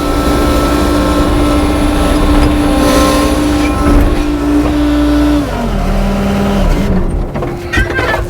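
Skid steer engine running at high revs, its pitch stepping down as it throttles back about five and a half seconds in, then easing off. A few sharp knocks come near the end.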